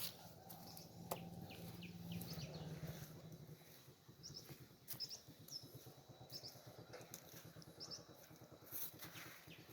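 Birds chirping faintly in short scattered calls, with a few sharp clicks.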